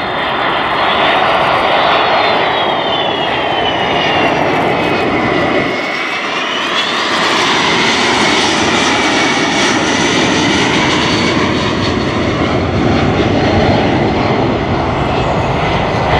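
RAF C-17 Globemaster III's four Pratt & Whitney F117 turbofan engines during a low flyby: a loud steady jet roar. A high whine slides down in pitch over the first several seconds, then climbs again about seven seconds in as the aircraft passes and pulls away.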